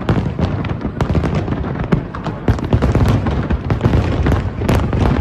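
Fireworks display: a rapid, continuous run of bangs and crackles over a low rumble.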